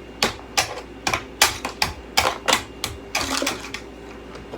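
Irregular sharp clicks and clacks of hard objects knocking together, about two a second, with a short scraping rustle a little past three seconds in.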